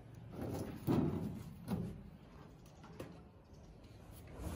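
Rusty sheet-steel car body panels being handled on a mat: a few knocks and thuds, the loudest about a second in.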